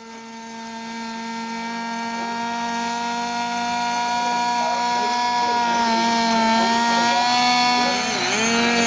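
RC model fighter aircraft's engine running at a steady high pitch, fading in at the start; near the end its pitch starts swinging up and down in a quick, regular rhythm.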